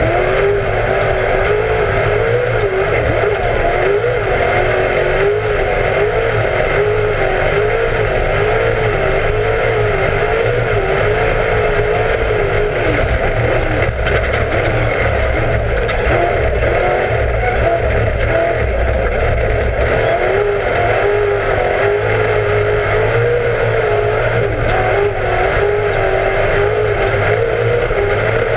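Class 1 off-road race car's engine running hard at racing speed, loud and unbroken, its pitch rising and falling continually as the throttle comes on and off.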